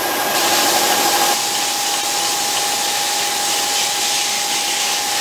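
CNC knee mill's end mill cutting the rear-sight dovetail and pocket into a pistol slide, over a steady hiss from the mist-coolant air nozzle. A steady high whine from the cut comes in about a second and a half in.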